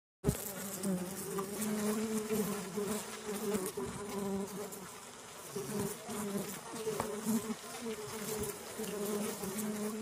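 Bees buzzing: a steady droning hum whose pitch wavers up and down, starting abruptly just after the start.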